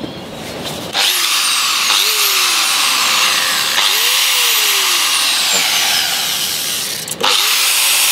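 Electric angle grinder with a wire wheel scrubbing rust off steel prop shaft fittings. The wheel bites about a second in, and the motor's pitch sags and recovers as it is pressed on and eased off. It breaks off briefly a little after seven seconds, then bites again.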